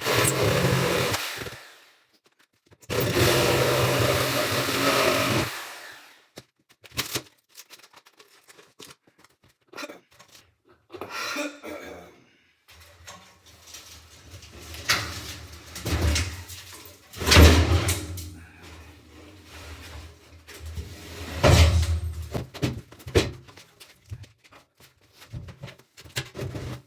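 A power tool runs in two loud bursts of a few seconds each, then a long series of knocks, thumps and scrapes as an old bathtub is pried loose and pulled out, the heaviest thuds about two thirds of the way through.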